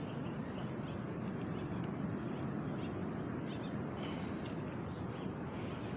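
Steady outdoor background hiss with a faint constant high tone and a few faint short chirps.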